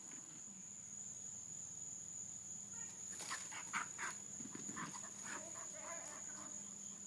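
Faint dog barking at a distance: a quick run of short barks about halfway through, over a steady high-pitched whine.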